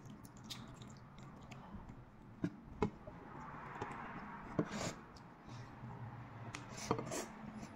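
Fingers peeling the shell off a balut (boiled fertilised duck egg): scattered small cracks and clicks of breaking eggshell, with a soft rustling hiss near the middle.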